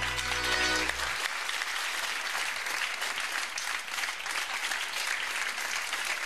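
Studio audience applauding, a dense, even clapping. The last held note of the music stops about a second in, leaving the applause alone.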